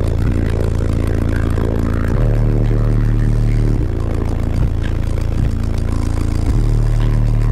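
Car-audio subwoofers in a bandpass enclosure playing deep sustained bass notes that step to a new pitch every second or so, with a buzzing rattle riding on top.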